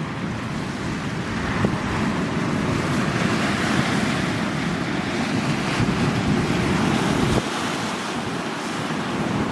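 Sea waves washing onto the shore, the rush of water building over several seconds and dropping off about seven seconds in, with wind buffeting the microphone.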